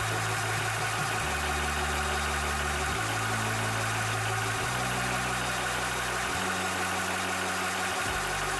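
Cobra 300-bar (4500 psi) high-pressure PCP air compressor running steadily while it pumps, an even, unbroken mechanical drone.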